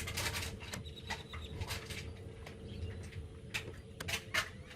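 Heater blower fan of a 1999 Ford F-350 Super Duty running with a steady hum, now blowing air again after its blower motor resistor and connector were replaced. Short, sharp clicks or chirps are scattered over it.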